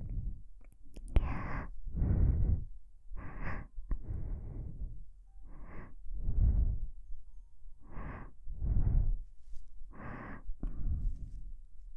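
Slow, close ASMR breathing into a KU100 binaural dummy-head microphone: about five unhurried breaths in and out, each a soft rush of air with a low puff where the breath reaches the microphone. A couple of faint clicks about a second in.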